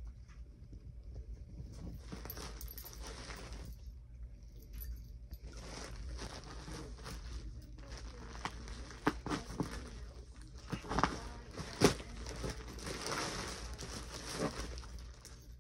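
Plastic mailer bag crinkling and rustling as it is handled and pulled open, with a cluster of sharper, louder crackles about two-thirds of the way through.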